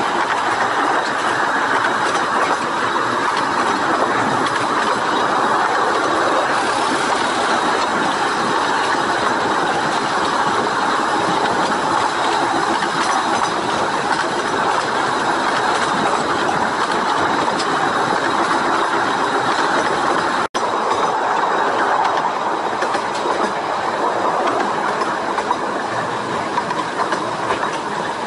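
Carriage wheels of a 15-inch gauge miniature railway train rolling along the rails at speed, a steady rumbling run of wheel-on-rail noise heard close to the track. The sound cuts out for an instant about twenty seconds in.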